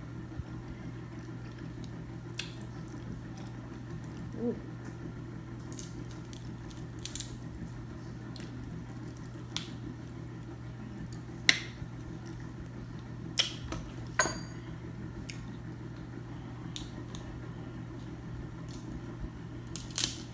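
Snow crab leg shells cracking and snapping as they are broken open, heard as scattered sharp clicks, the loudest about halfway through. A steady low hum runs underneath.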